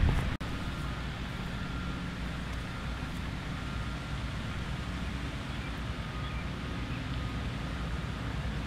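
Steady low outdoor background rumble with a light hiss, after a brief louder rush right at the start.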